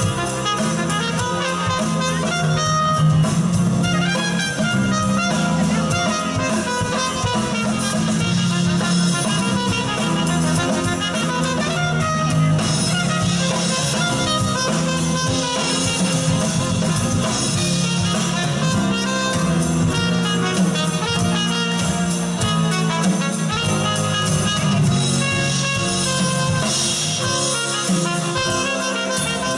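Live band playing an instrumental passage: a trumpet over electric guitar, bass guitar, keyboard and drum kit, at a steady loud level without a break.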